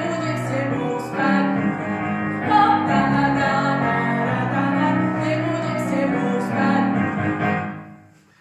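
A woman singing a song with musical accompaniment, fading out near the end.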